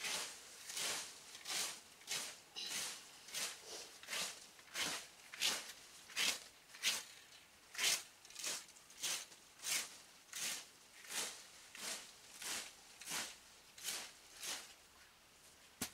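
Garden rake scraping through fallen leaves on grass in quick, regular strokes, about one and a half a second, each a short rustle; the strokes stop near the end.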